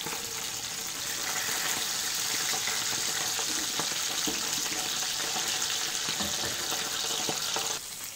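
Mackerel fillets frying in hot oil in a pan, a steady sizzle that grows louder about a second in and falls off abruptly near the end, with a few light clicks of the spatula and tongs against the pan.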